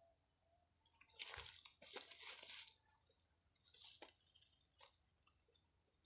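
Wire-mesh snake trap being tipped over and shifted on dry ground: a run of faint crunchy scraping and rattling about a second in, then a few lighter clicks and scrapes.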